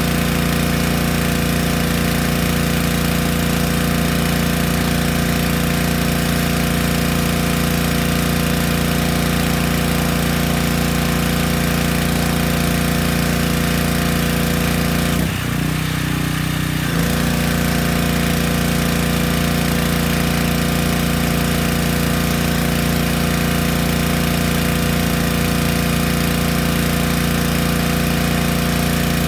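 Yamaha PowerStroke 3100 PSI gas pressure washer engine and pump running steadily, with the hiss of its spray. About fifteen seconds in, the engine note shifts and the hiss drops for under two seconds, then both return to the steady run.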